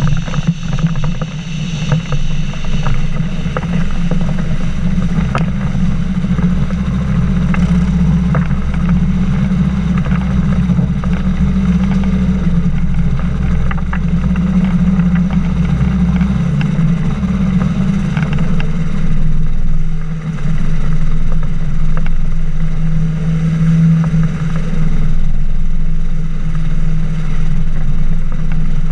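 Flying inflatable boat's engine and pusher propeller running steadily at speed as the boat skims the water.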